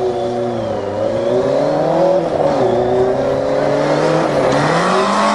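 Motorcycle engine of a tube-frame dune buggy under way, its revs dipping and rising several times as it is driven and shifted, then climbing near the end and held high.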